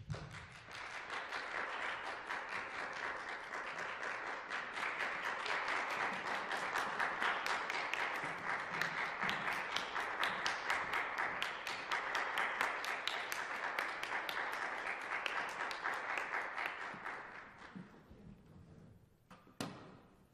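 Audience applauding for about eighteen seconds, then dying away, with a single sharp knock near the end.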